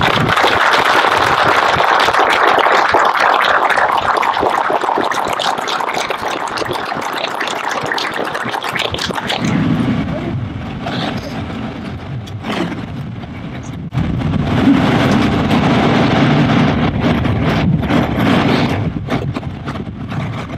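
Crowd applauding as the memorial plaque is unveiled, the clapping thinning out after about nine seconds. A steady low rumble follows from about ten seconds in and grows stronger from about fourteen seconds.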